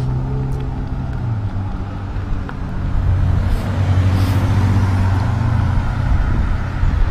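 Ride noise from a Segway Mini self-balancing scooter on a sidewalk: a steady low hum whose pitch drops slightly after about a second and comes back up after about five, over road and wind noise. A car passing on the street joins in toward the end.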